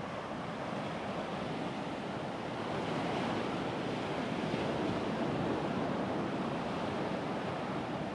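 Ocean surf washing onto the beach, a steady rush that swells a little about three seconds in, with some wind on the microphone.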